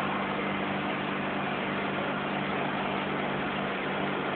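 Forklift running with a steady, even hum while its hydraulic 360° paper roll clamp rotates.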